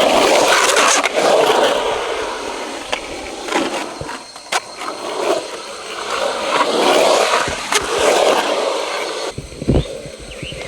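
Skateboard wheels rolling on concrete, the rumble swelling and fading as a rider carves past several times, with a few sharp clacks of the board hitting the ground; the loudest is a thud near the end.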